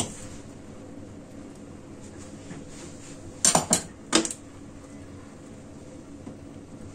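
Dishes and utensils clinking: one sharp knock at the very start, then three quick clinks about three and a half seconds in, over a faint steady hum.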